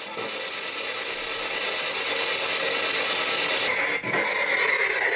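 P-SB7 spirit box sweeping through the radio band, giving a continuous hiss of static. A high whistle joins it about three and a half seconds in.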